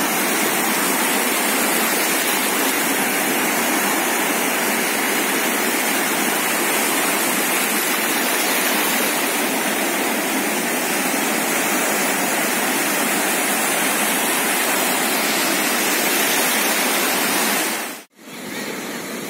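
Steady rushing of sea waves washing on the shore. It cuts off abruptly near the end, leaving a quieter rush.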